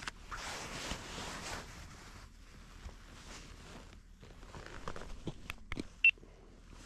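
Rustling and handling noise, followed by several sharp clicks and one brief, loud high-pitched chirp about six seconds in.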